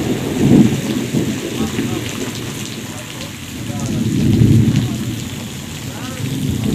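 Heavy rain falling steadily on the wet road and ground, with deep rumbling swells about half a second in and again around four to five seconds in.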